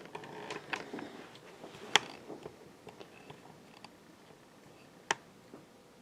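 A few isolated sharp clicks, the loudest about two seconds in and another about five seconds in, with fainter ticks between, from the pull-chain switch of a 1979 Casablanca Zephyr ceiling fan being worked.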